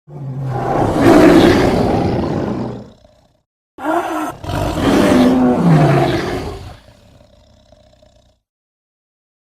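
Two loud animal roars, sound effects for a tiger-and-moose creature, each about three seconds long; the second drops in pitch near its end and trails off quietly.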